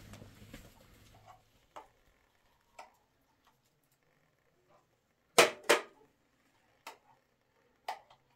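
Scattered clinks and knocks, about a second apart, the loudest a close pair about five and a half seconds in.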